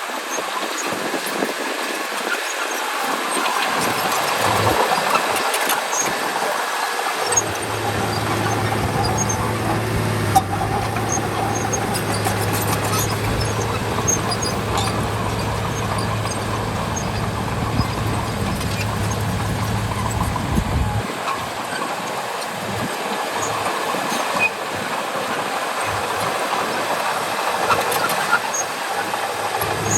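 Bulldozer at work, its engine running and its steel tracks clattering, with scattered small clicks and ticks. A steady low hum comes in about a quarter of the way through and stops about two-thirds through.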